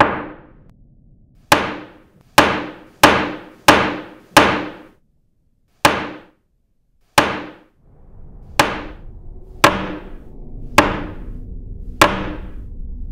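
A wooden gavel banging about a dozen times, single sharp knocks roughly a second apart, each with a short ringing echo. A low rumble comes up under the last few knocks.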